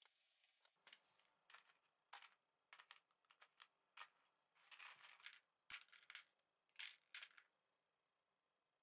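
Quiet, irregular clicking and rattling of steel paper clips and safety pins jostling against each other and a plastic box, as metal tools are poked into them to test whether they are still magnetized.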